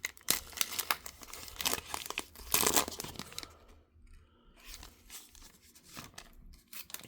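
A trading card pack wrapper being torn open by hand with crinkling and crackling, loudest about two and a half seconds in, followed by a few faint clicks as the cards are handled.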